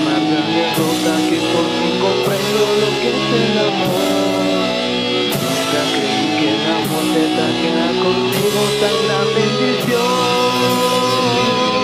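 Folk metal band playing its own song: a full band with guitars and a melody line, which holds long sustained notes near the end.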